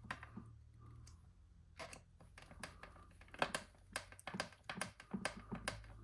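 Irregular light clicks and taps of small plastic RC kit parts, screws and a screwdriver being handled on a workbench, over a faint low hum that drops out about a second in and comes back near the end.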